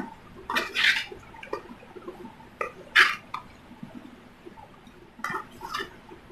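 Wooden spatula stirring and scraping chopped raw vegetables (spring onions, potato, tomato) around a non-stick pan, in several irregular strokes, the loudest about three seconds in.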